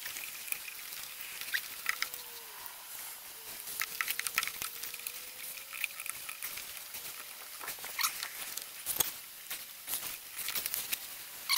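Irregular small clicks, clinks and scrapes of metal parts and hands as a snowmobile carburetor is being fitted back onto its engine.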